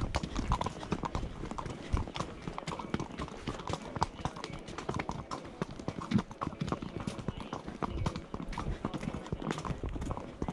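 Horses walking on a stony dirt trail, hooves clip-clopping in an uneven run of knocks.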